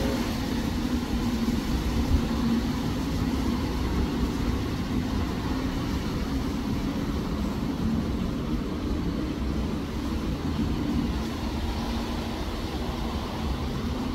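Wind blowing across the microphone: a steady low rumble.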